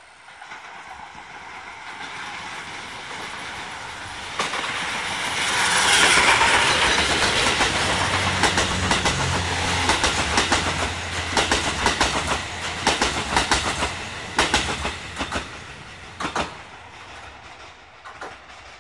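Steam-hauled passenger train, the C57 1 locomotive and its 35-series coaches, approaching and passing close by, loudest about six seconds in. The coaches then roll past with their wheels clacking over the rail joints, and the sound fades as the train draws away near the end.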